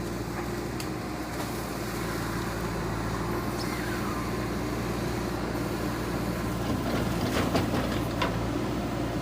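JCB 3DX backhoe loader's diesel engine running steadily, with a few sharp knocks about seven to eight seconds in.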